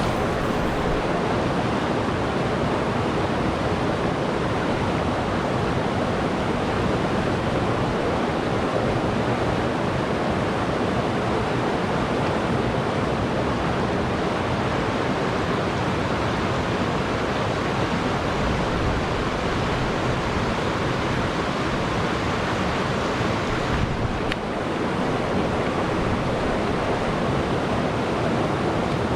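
Kern River water rushing over rocks, a steady, even noise, with one brief dip near the end.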